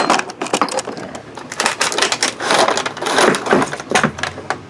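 A cardboard box and a stiff clear plastic clamshell tray being handled and pulled apart, giving a dense crinkling and crackling with many sharp clicks.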